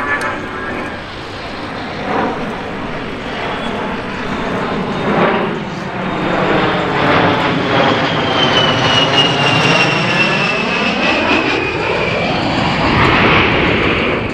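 A US Air Force A-10 Thunderbolt II's twin TF34 turbofan engines running as the jet flies past, growing louder. Its high-pitched whine falls steadily in pitch over several seconds as the jet goes by.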